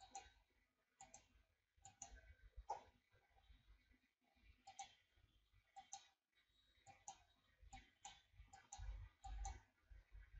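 Faint clicks of a computer mouse, many in an irregular run, as its button is pressed repeatedly.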